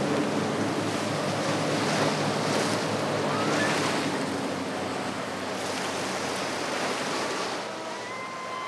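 Twin Mercury 300 outboard motors running at speed, a steady engine drone under the rush of waves, spray and wind. The engine fades about halfway through, leaving the rush of water, and a few short high-pitched tones come in near the end.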